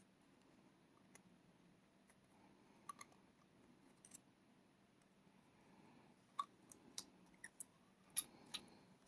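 Faint, scattered small clicks and taps from handling the parts of a pin tumbler rim cylinder lock during reassembly, a few early and a quicker run of sharper clicks in the last few seconds.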